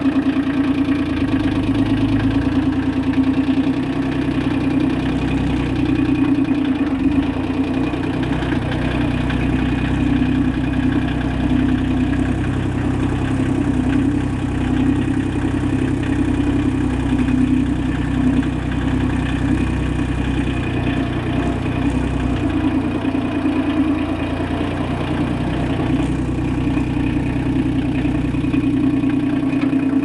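Tractor engine running steadily while the tractor drives with a log on its front pallet forks, heard from the driver's seat.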